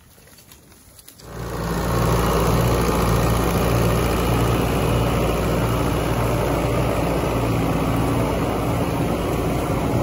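A tractor-driven feed mixer wagon running steadily as it unloads chopped corn silage from its side discharge door. It is a low engine drone with a slight rhythmic pulse, and it starts suddenly about a second in.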